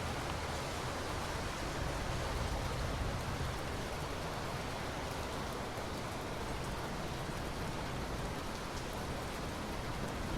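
Steady rainfall, a continuous even hiss with no single loud event standing out.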